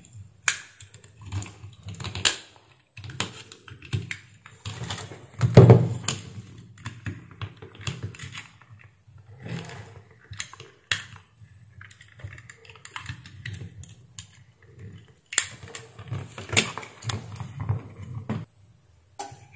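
Irregular clicks, taps and knocks from a small circuit board with its transformer and wires being handled and set down on a workbench, with one louder knock about six seconds in.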